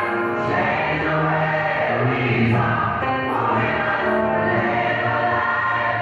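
Gospel choir singing, the voices holding long notes that change pitch every second or two.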